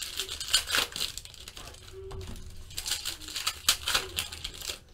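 Foil trading-card pack wrapper crinkling and tearing as it is ripped open by hand, a run of irregular short crackles.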